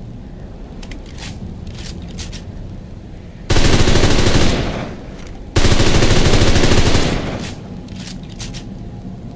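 Two bursts of automatic fire from an MP38 9 mm submachine gun, each about a second long with a short gap between, over a low rumble with a few faint scattered shots.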